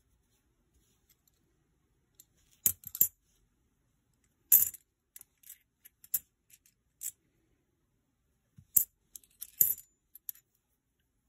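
Clad Kennedy half dollars clinking against one another as they are picked up and set down in small piles: scattered sharp metallic clicks in short clusters, with brief quiet gaps between them.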